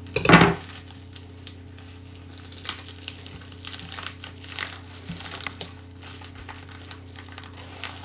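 Mail package being opened by hand: a loud rip about a third of a second in, then scattered crinkling and rustling of the packaging.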